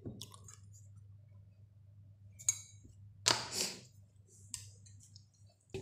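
Light clicks and clinks of a spoon and steel tableware being handled, with a short scraping rustle a little past the middle, over a faint steady low hum.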